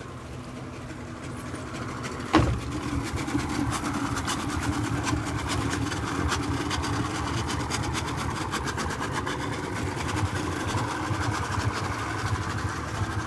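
Yamaha outboard motor running steadily as the boat gets under way, growing louder over the first few seconds. A single knock about two seconds in.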